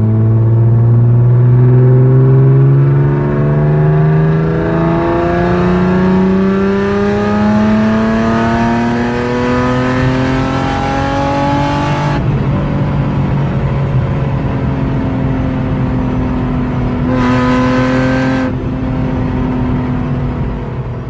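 A car engine under acceleration, its pitch climbing steadily for about twelve seconds, then dropping suddenly and holding a steadier note.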